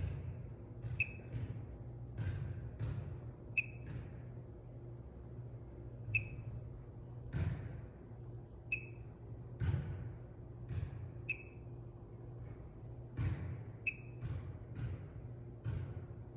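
Interlogix NetworX NX-8 alarm keypad beeping once every two and a half seconds or so: the countdown beep of the exit delay after arming. Irregular knocks and thumps sound among the beeps, the loudest of them about halfway through.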